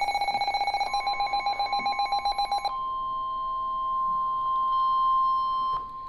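Midland NOAA weather radios alerting for a severe thunderstorm warning. A rapidly pulsing electronic alarm beep is joined about a second in by a steady high warning tone near 1 kHz, the weather-radio alert tone. The tone carries on alone after the beeping stops and cuts off suddenly near the end.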